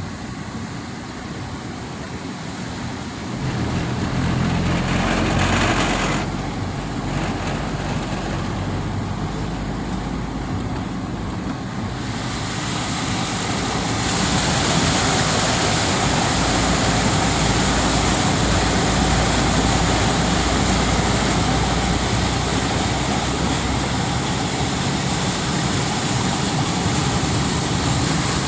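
Floodwater rushing steadily, growing fuller and louder about twelve seconds in, with a low engine hum briefly in the first few seconds.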